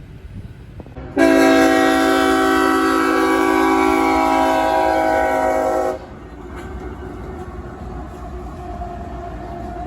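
Diesel freight locomotive's multi-chime air horn sounding one long steady blast of about five seconds, a horn salute, then cutting off, over the steady rumble of a train rolling by.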